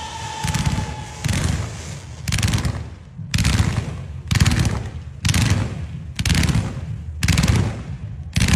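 Fireworks going off in a rapid series, about one sharp crackling burst a second, with a fading whistle in the first second.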